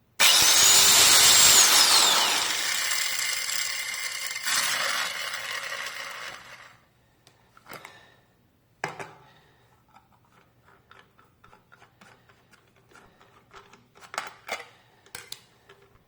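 GW Power Tools AG004 4-inch corded angle grinder switched on and running unloaded with a high whine for about a second and a half, then switched off, its whine falling as the motor spins down over about five seconds. A few knocks and clicks of the tool being handled follow.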